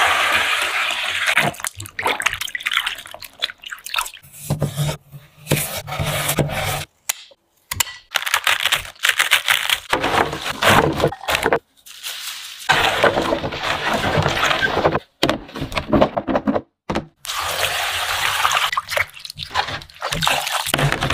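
Vegetable-prep sounds: water pouring and splashing into a glass bowl of chillies and long beans, cut cabbage dropping and rustling into a plastic tub, and hands swishing salted vegetables through water to rinse the salt off. These come in short takes separated by brief silences.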